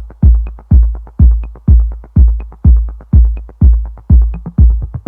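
Electronic dance music with a heavy kick drum at about two beats a second, light ticking between the beats and a short high note on every other beat.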